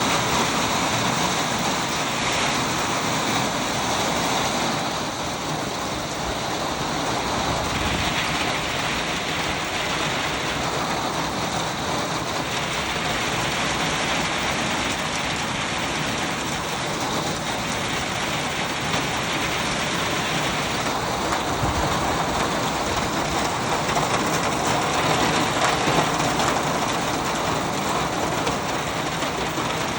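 Heavy rain falling steadily as a dense, even hiss.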